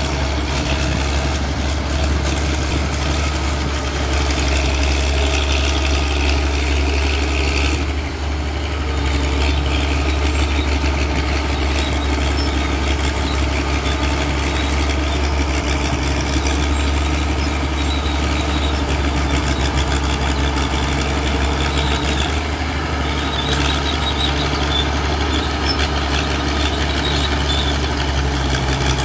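Crawler tractor's diesel engine running steadily while plowing a dry field, a constant low hum with little change, dipping slightly for a moment about eight seconds in.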